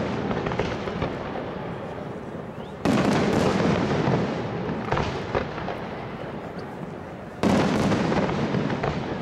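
Aerial firework shells bursting, two big booms about three and seven and a half seconds in, each trailing a long rumble that slowly fades. A couple of sharper cracks come about five seconds in.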